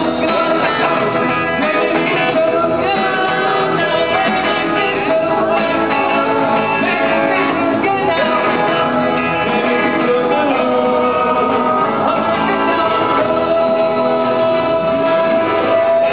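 Live pop-rock band playing a song, with electric bass, guitar and drums under a man singing into a microphone; steady and loud.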